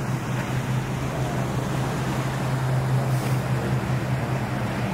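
Motor yacht engines running with a steady low hum, over a hiss of water wash and wind.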